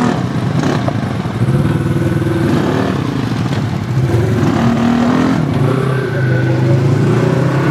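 Engine of a Polaris RZR 170 youth side-by-side, a small single-cylinder four-stroke, running under throttle. Its pitch rises and falls as it revs and eases off, dipping around the middle and climbing again.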